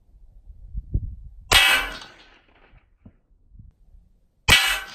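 Two 300-grain 338 Lapua Magnum bullets striking a steel plate target, about three seconds apart. Each hit is a sharp, loud crack followed by the plate ringing for about half a second.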